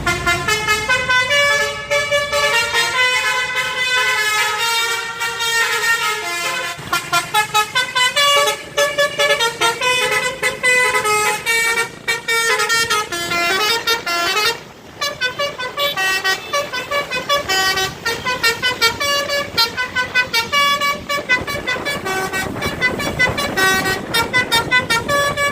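Basuri telolet horn on a tour bus playing a fast tune of many short pitched notes that step up and down, with a short break about two-thirds of the way through.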